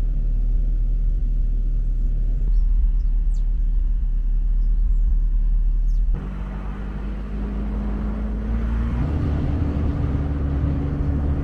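Vehicle engine and road rumble while driving, with a low steady engine note. About six seconds in the sound changes abruptly; the engine note then rises slowly and steps up again about three seconds later.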